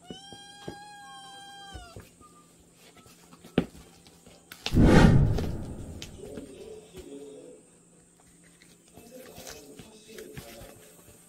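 A kitten gives one long, high, level meow lasting nearly two seconds. A couple of seconds later comes a sharp knock, then a loud scuffling thump that fades over about a second as the kitten tussles with a tube on a padded chair.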